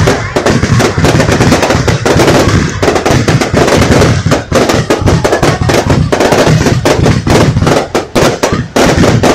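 Aerial fireworks in a rapid, continuous barrage: many bangs and crackles a second from shells bursting overhead, overlapping with no pause.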